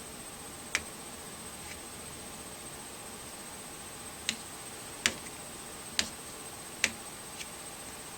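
Sharp taps of a pointer on a wall sound-color chart, six at uneven spacing, the loudest about five seconds in, over a faint steady high whine and hiss.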